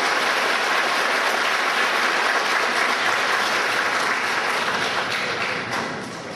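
Audience applauding, a steady dense clapping that thins out and fades over the last couple of seconds.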